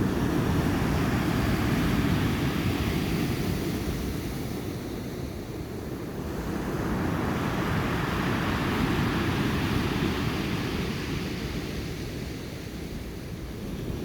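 Sea surf breaking on the shore: a steady rush of waves that swells and eases, with a second wave surging in about halfway through, its hiss brightest then.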